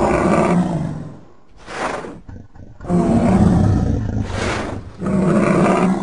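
Creature sound effect made from bull and other large-animal calls: a deep bellowing roar fades out in the first second, followed by a short breathy huff. Then come two more deep bellows, each ending in a breathy exhale.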